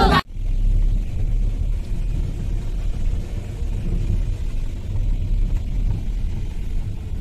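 Music cuts off suddenly a moment in, giving way to a low, steady rumble of vehicle noise.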